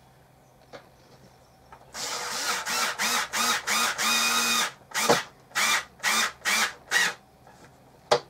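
Small cordless electric screwdriver driving screws into the plate rack's frame. A stuttering run of whirring starts about two seconds in, and near the end comes a string of about five short trigger bursts as a screw is run home.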